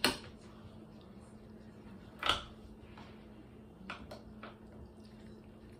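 Pie server and knife cutting through the baked pastry crust of a meat pie: a few short scrapes and crunches, the loudest about two seconds in, with faint clicks near the four-second mark.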